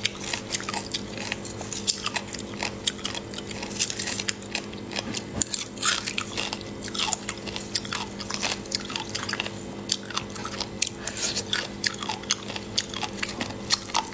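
Close-up wet chewing and crunching of spicy marinated shellfish in chili oil. Many irregular crisp crunches and mouth clicks run throughout, over a steady low hum.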